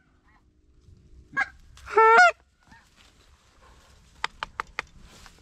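Goose call blown close by: a short note a little over a second in, then a loud honk that breaks from a low note to a higher one about two seconds in. Near the end comes a quick run of sharp clicks.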